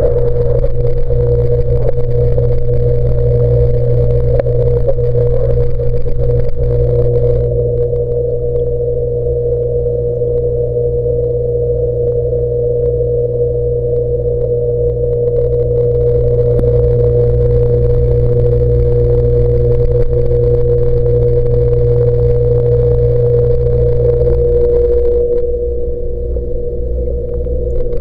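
Saltwater aquarium pump humming, picked up by the submerged camcorder's microphone: a loud, unbroken mechanical drone with one steady tone over a deep hum. A faint hiss above it drops away for several seconds twice.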